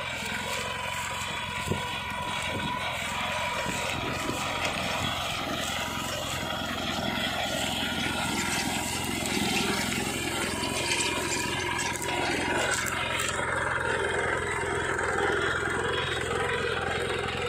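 Captain 7th-generation mini tractor's diesel engine running steadily under load as it pulls a two-bottom mouldboard plough through dry soil and stubble.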